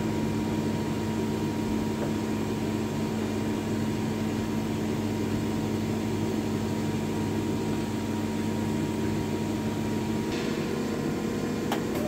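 Miyano ABX-51TH2 CNC lathe running: a steady machine hum with several steady tones. About ten seconds in a short hiss and a new higher tone join it, followed by a single sharp click near the end.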